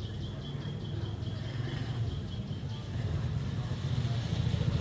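Car driving, a steady low engine and road rumble heard from inside the vehicle, growing slightly louder about three seconds in. A faint thin high whine runs through the first half.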